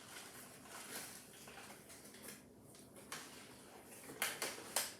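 Packaging being handled during unboxing: faint rustling, then a few sharp clicks and crackles about four seconds in.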